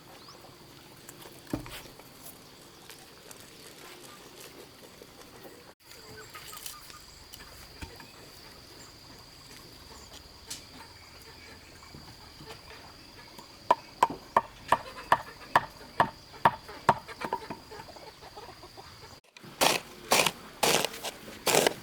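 Quiet outdoor ambience with a steady high insect-like tone. About two-thirds of the way in, a run of sharp, regular knocks starts at roughly two a second. After an abrupt cut near the end, louder knocks follow at the same pace.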